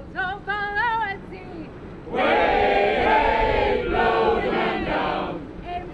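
Call-and-response group singing: a single voice sings a solo line, then a big group of crew voices answers with a loud sung chorus for about three seconds before the solo voice comes back near the end.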